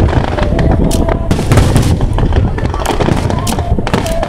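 Aerial fireworks shells bursting in quick succession: many sharp bangs, several a second, over a continuous low rumble.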